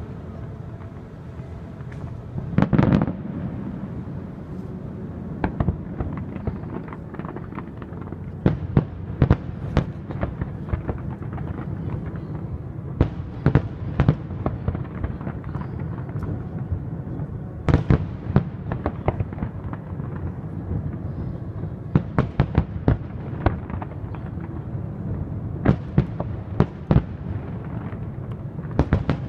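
Aerial fireworks shells bursting in an irregular, rapid succession of sharp bangs over a continuous low rumble, with a heavier, drawn-out blast about three seconds in.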